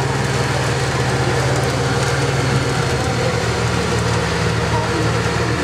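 Off-road vehicle's engine running at steady revs, a constant low hum.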